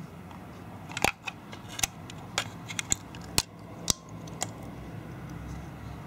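Sharp plastic clicks and knocks from a Li-ion battery charger's case being handled and pulled apart by hand. About eight clicks come between one and four and a half seconds in, over a steady low hum.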